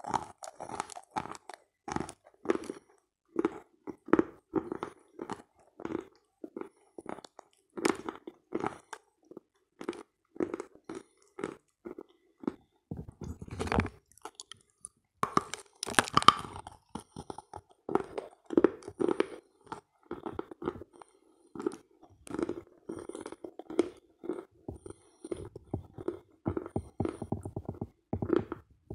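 Close-miked crunchy chewing of dry pressed clay 'halva' (edible kaolin clay) in a steady run of short crunches. It grows louder and denser about halfway through as a fresh piece is bitten off and crushed.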